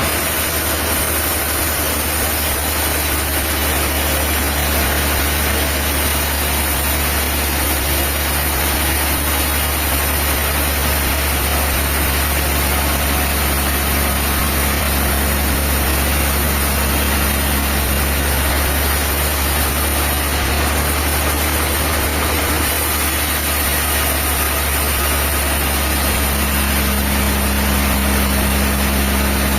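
Diesel engine of sawmill machinery running steadily, with no cutting or load changes heard.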